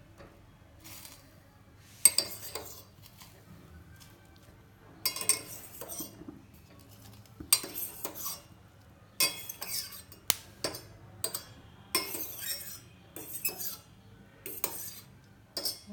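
A spoon clinking and scraping against a pot and a bowl as boiled instant noodles are scooped out: one sharp knock about two seconds in, then a run of irregular clinks and scrapes.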